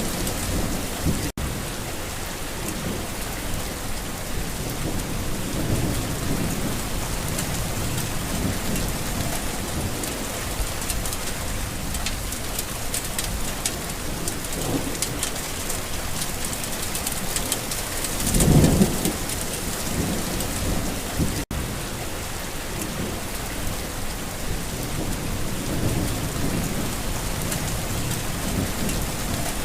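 Steady rain falling on a garden, with several low rolls of thunder, the loudest about two-thirds of the way through. The sound cuts out for an instant twice.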